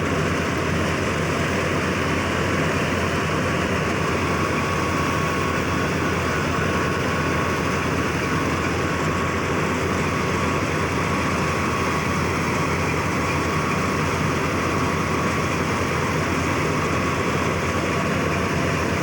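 Tractor-powered wheat thresher running steadily under the tractor's engine: a continuous loud mechanical drone with a thin steady whine above it.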